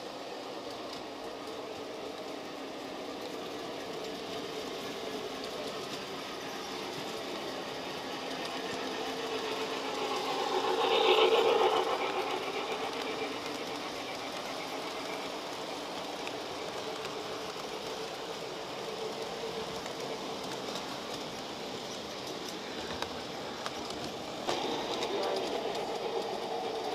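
Model train running on the layout's track, a steady mechanical whirring clatter of wheels and motor heard from a camera riding on the train. About eleven seconds in, the sound swells louder for a couple of seconds and then settles back.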